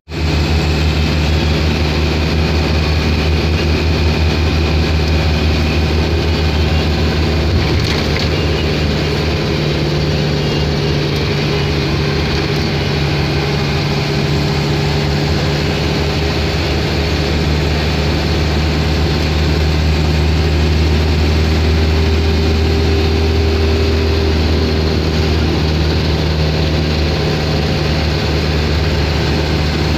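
Steady low engine drone and road noise inside a minibus cruising on a highway.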